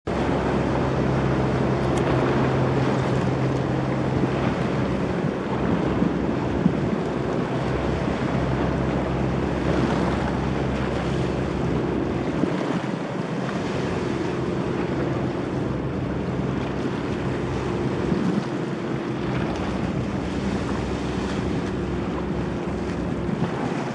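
Waterjet-propelled catamaran ferry passing with a steady low engine drone, mixed with the wash of waves and wind buffeting the microphone.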